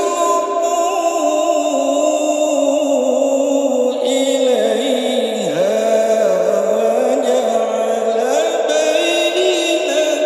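A man reciting the Quran in the melodic chanted style (tilawah) into a handheld microphone: long held notes that bend up and down with ornamented turns, dipping briefly about halfway through.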